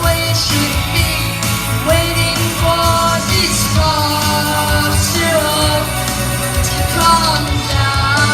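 Live rock song performance: a male voice singing over rock accompaniment with a steady beat.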